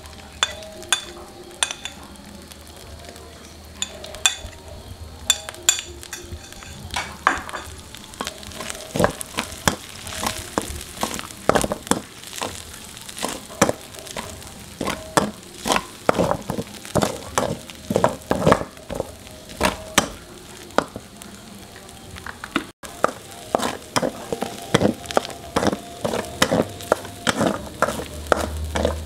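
Metal spatula scraping and knocking against a metal wok while a spice paste and green chilies fry in oil, over a steady sizzle. The strokes are sparse at first, then come about two a second from roughly a third of the way in.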